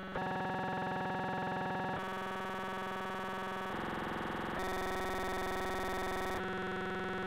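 Music of sustained synthesizer chords, each held steady for one to two seconds before switching abruptly to the next, five chords in all.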